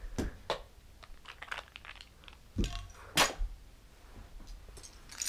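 Loose plastic Lego bricks clicking and clattering as they are gathered up and tossed, with a few louder knocks among the small clicks.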